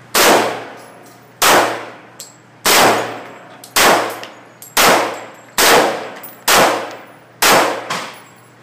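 Eight shots from a 1911 semi-automatic pistol, fired one at a time in a steady string of about one a second, the pace quickening slightly after the first few. Each shot is a sharp crack with an echoing tail that dies away before the next.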